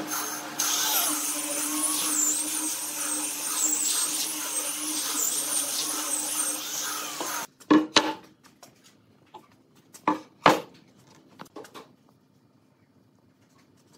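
Angle grinder fitted with a sanding disc, running and pressed against a wooden tabletop: a steady grinding hiss with a high motor whine that wavers under load. It cuts off suddenly about halfway through, and a few sharp wooden knocks follow.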